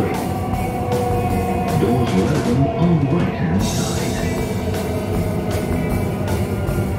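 Background rock music with guitar and a steady drum beat. The high end briefly drops out about halfway through, then comes back.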